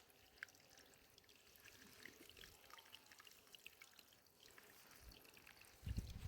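Near silence with faint scattered ticks, and a low thump shortly before the end.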